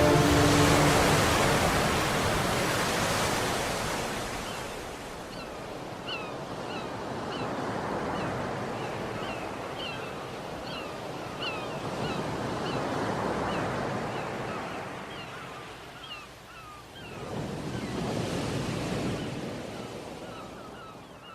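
Sea waves breaking on a shore, the surf swelling and falling back in slow surges every few seconds. From about five seconds in, short birdcalls repeat roughly once a second over the surf.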